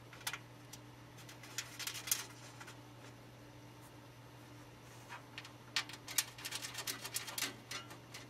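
Light clicks, taps and small scrapes of computer parts being handled while a motherboard is fitted into a PC case, in scattered clusters over a steady low electrical hum.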